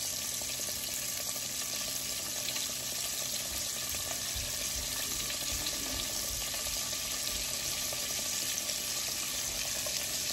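Flour-coated mushrooms frying in a skillet of hot oil: a steady, dense sizzle with fine crackling, the sound of moisture cooking out of the mushrooms. The oil dying down is the sign that they are close to done.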